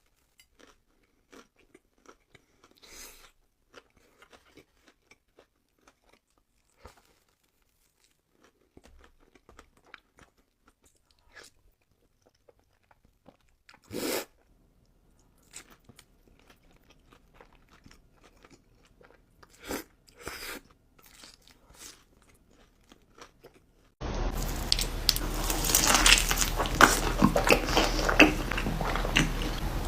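Close-miked eating: soft chewing and scattered small bites, with a louder crunchy bite about halfway through. About four-fifths of the way in the sound cuts suddenly to loud, continuous crunching and chewing.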